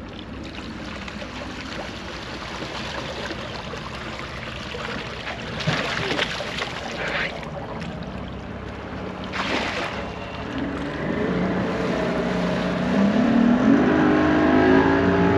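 Bass boat's outboard motor running low, then throttled up about ten seconds in and held at a steady higher pitch as the boat is powered up onto its trailer. Two brief rushes of noise come earlier.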